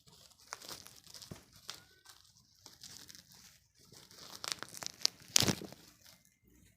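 Parcel packaging crinkling and tearing as it is pulled open, a run of irregular crackles with the loudest rip about five and a half seconds in; the parcel is tightly sealed and hard to open.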